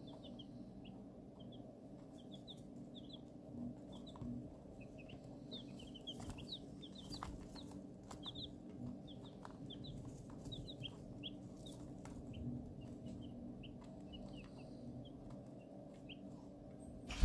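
A brooder of young chicks, buff Orpingtons among them, peeping continually: many short, high-pitched peeps overlapping several a second, over a steady low hum.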